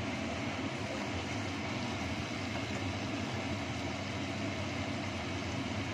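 Kitchen range hood extractor fan running steadily, a low hum under an even rush of air, while spice paste fries and is stirred in a non-stick pan.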